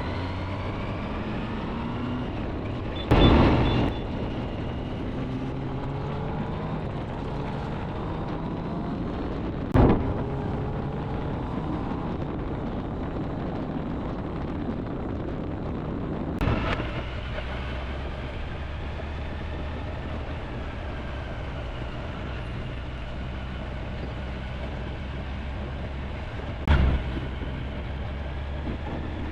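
Wind rushing over the microphone with the steady drone of a Kawasaki ZX-10R's inline-four engine at highway speed. Four short, loud bursts cut through it, about 3, 10, 16 and 27 seconds in.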